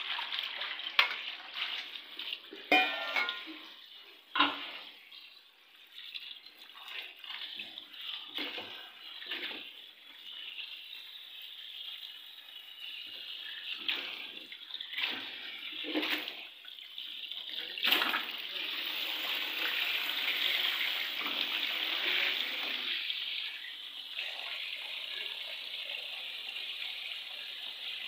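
Tap water running into a kitchen sink while fruit is rinsed under it, with scattered knocks and clatters of handling. The flow grows stronger about two-thirds of the way through, then eases a little.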